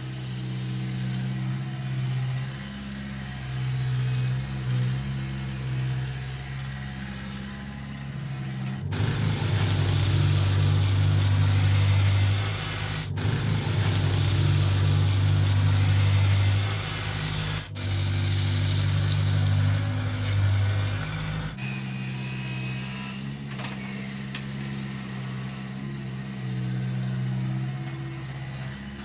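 Heavy diesel engines of construction machinery running steadily with a low hum. The engine sound changes abruptly several times and is loudest in the middle stretch.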